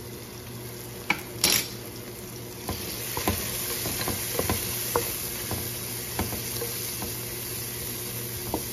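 Tomato, onion, garlic and ginger sizzling in oil in a stainless steel pot while ground curry powder and turmeric are stirred in with a wooden spatula, frying the spices into a masala. The spatula knocks and scrapes against the pot many times. There is a sharp clatter about one and a half seconds in, and the sizzle grows louder from about three seconds in.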